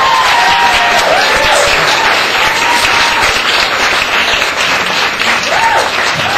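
Audience applauding steadily, with a few voices whooping over the clapping.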